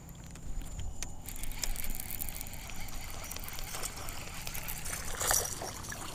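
Fishing reel being cranked and rod and reel being handled while a hooked bass is played on the line: irregular small clicks and rattles, a little louder near the start and about five seconds in, over a low steady rumble.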